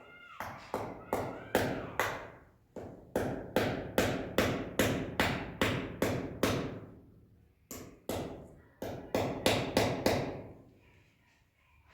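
A rapid series of sharp knocks or blows, about three a second. They pause briefly about two thirds of the way through, resume, and stop shortly before the end.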